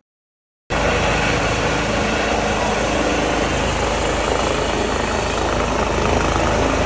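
Rescue helicopters' turbine engines and rotors running steadily, cutting in abruptly after a brief silence near the start.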